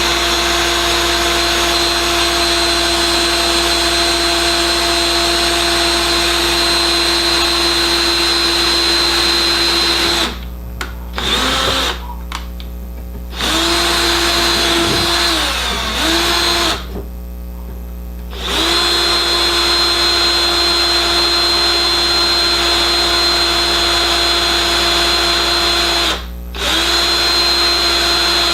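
Electric drill running at a steady pitch while boring a mounting hole. It runs for about ten seconds, stops, goes in a few short spurts with the pitch sagging briefly as it works, then runs steadily again with one short break near the end.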